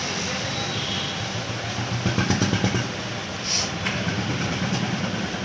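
Cloth rag rubbing and rustling over an oily breaker-hammer piston, in quick irregular strokes loudest about two seconds in. A steady low mechanical rumble runs underneath.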